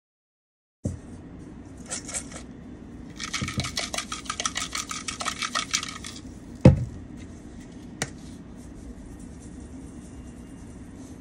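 Seasoning shaken out of containers over shredded cabbage in a stainless steel bowl: a rapid rattling shake for about three seconds, then a sharp thump of a container set down, a click, and fainter sprinkling after it.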